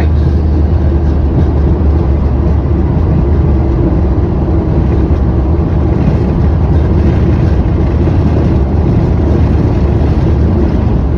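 Steady, loud noise inside a Boeing 737 cockpit during landing: a continuous low rumble with a steady hum above it, unchanging throughout.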